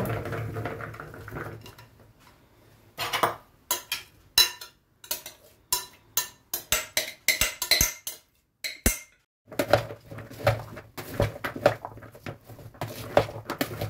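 Chopped salad of chicken, celery, apple and grapes sliding out of a glass bowl into a plastic bowl, followed by a run of sharp clinks and taps as the glass bowl is knocked and scraped empty. Near the end, a spoon clatters and scrapes through the moist salad in the plastic bowl as it is stirred.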